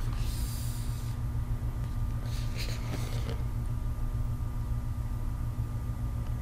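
Faint rustling of a paperboard knife box being handled and turned in the hands, in two short bouts, one just after the start and one about two and a half seconds in, over a steady low hum.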